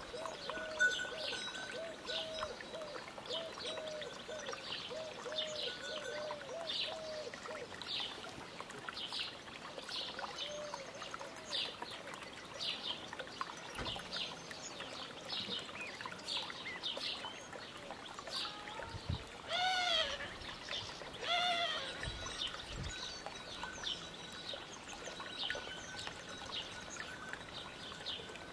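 Goslings peeping, short high chirps repeating every half second or so, with a run of lower repeated calls in the first several seconds and two louder calls about twenty seconds in.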